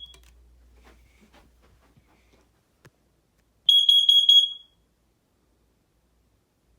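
Smoke alarm sounding during a push-button test: one brief, high-pitched beep at the start, then a quick run of about four shrill beeps about four seconds in.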